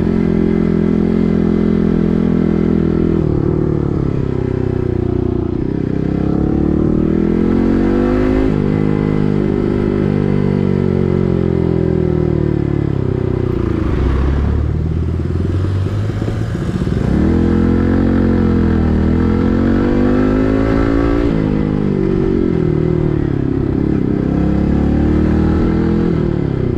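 Yamaha MT-15's 155 cc single-cylinder engine running through an SC Project full-system exhaust while riding. The engine note rises and falls several times as the throttle is worked, with a few sudden drops in pitch.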